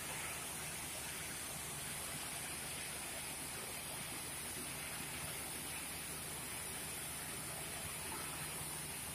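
Oxy-fuel cutting torch on a Koike IK-70 circle-cutting machine hissing steadily as its oxygen jet burns through 50 mm steel plate.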